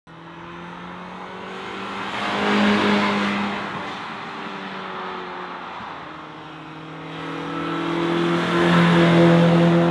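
1991 Mazda Miata's 1.6-litre four-cylinder engine through a Borla cat-back exhaust, heard as the car drives past twice. The engine note swells to a peak about three seconds in, fades, then builds again to a second pass near the end.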